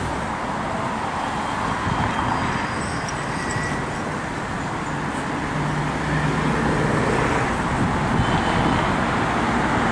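Road traffic going by: a steady rush of passing vehicles, with one engine's low hum standing out about six seconds in.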